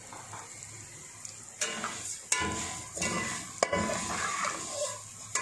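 Slotted metal spoon stirring and scraping dry vermicelli around a metal pot in a little hot oil, starting about one and a half seconds in, with two sharp metal-on-metal clinks. The vermicelli is being dry-roasted to light brown.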